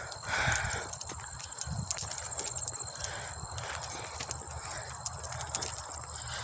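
Insect chorus of crickets or katydids: a steady, high, finely pulsing trill, with soft clicks and rustles over it.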